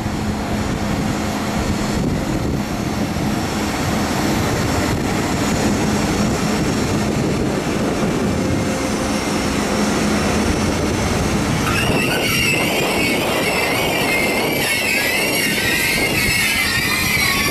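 ÖBB class 1116 Taurus electric locomotive hauling passenger coaches, rolling slowly in with a steady rumble and a low hum. From about twelve seconds in, a high, wavering squeal of the brakes and wheels joins it as the train comes to a stop.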